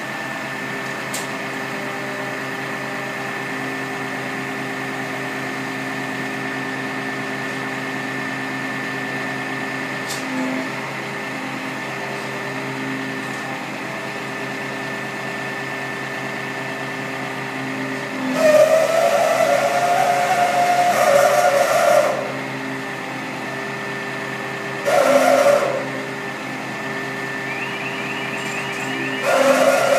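Fire appliance's engine running steadily to drive its hydraulic aerial platform, with three louder passages of hydraulic whine and hiss as the boom and cage are moved: one of several seconds past the middle, a short one a few seconds later, and another near the end.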